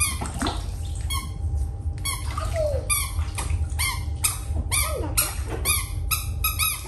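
Rubber duck toys squeaked again and again, roughly two short, high squeaks a second, over a steady low hum.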